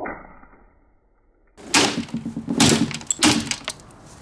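A plastic box fan being struck hard, about four heavy blows with clattering in the second half. Before them there is a short dead gap.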